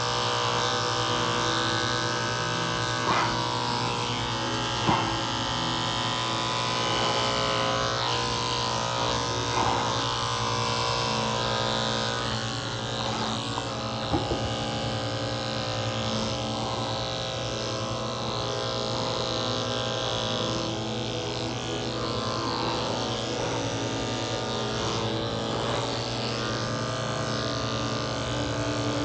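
Cordless electric dog clippers running with a steady hum as they shave a cocker spaniel's coat. A few light clicks sound along the way.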